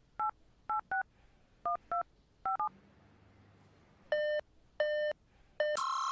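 Touch-tone telephone keypad dialing: about seven short two-tone beeps, then three longer, lower beeps. Electronic music kicks in near the end as the song's intro.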